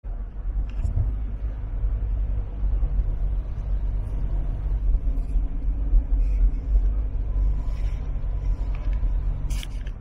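Steady road rumble inside a moving car driving at road speed, with a few faint clicks.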